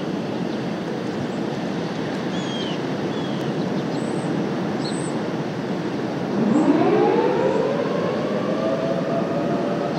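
Outdoor warning siren winding up about six seconds in, its pitch rising and then settling into a steady chord of two close tones. Wind noise on the microphone runs underneath.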